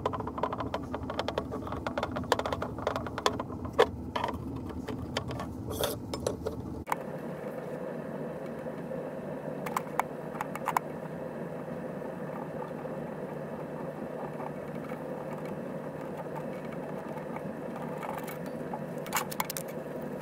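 Small screw bar clamp being handled and tightened on a leather belt: quick metal clicks and rattles from its sliding jaw and screw, thick for the first seven seconds and then only now and then, over a steady background hum whose low rumble drops away abruptly about seven seconds in.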